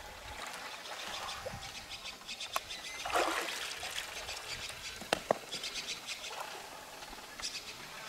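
River water splashing and dripping as freshwater mussels are lifted out of a shallow river, with the loudest splash about three seconds in, and two sharp clicks of shells knocking together about five seconds in. Birds chirp in the background.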